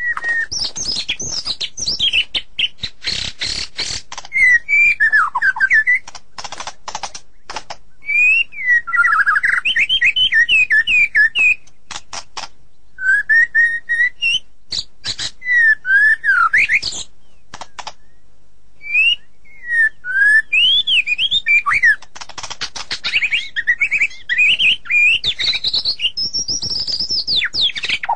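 White-rumped shama singing: quick phrases of loud whistled notes sliding up and down, mixed with rapid dry clicking notes, the song broken by a couple of short pauses.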